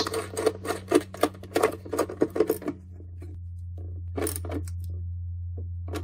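A perforated steel mounting bracket being fitted and bolted to a van's underbody frame with a hand tool: quick, irregular metal clicking and rattling for about two and a half seconds. Then a steady low hum with a few light taps.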